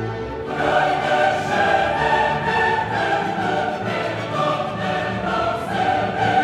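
Orchestral music with a choir, swelling up near the start and then sung at full strength.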